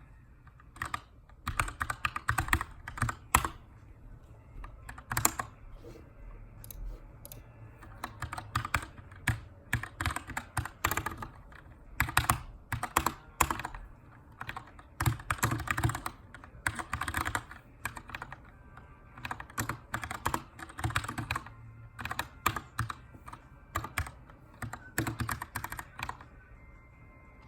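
Typing on a Keychron K2 aluminium-framed mechanical keyboard with brown (tactile) switches: quick runs of key clicks in bursts, separated by short pauses, as text is edited.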